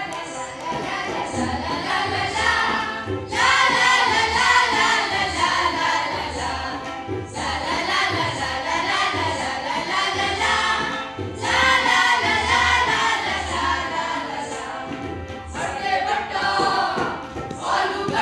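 A group of children singing a song together in chorus, in phrases that break off and start again about every four seconds, over a low steady beat.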